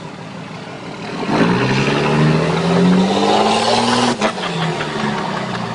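Diesel pickup engine revving hard while rolling coal (over-fuelled, blowing black smoke). The engine comes in about a second in and its pitch climbs for a few seconds. A sharp click follows just after four seconds, and then the engine runs on lower and steadier.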